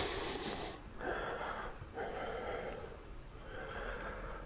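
A man breathing audibly close to the microphone: several soft breaths in and out.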